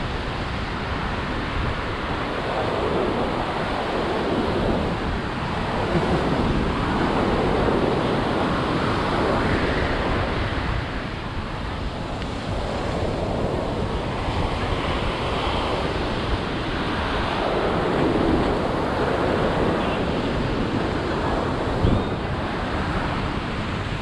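Ocean surf breaking and washing up the beach, rising and falling in several swells, with wind rumbling on the microphone. A single sharp tap near the end.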